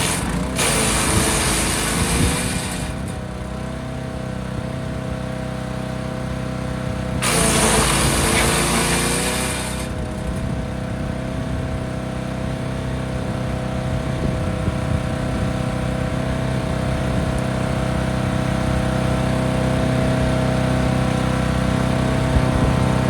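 Forest Master FM8DD wood chipper running steadily, with two loud chipping bursts of two to three seconds each as branches go through, one right at the start and one about seven seconds in. The engine note sags under the load during each burst.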